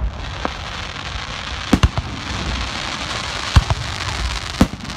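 Aerial fireworks bursting at close range: sharp bangs, two close together about two seconds in and single ones later, over a dense crackle of crackling stars.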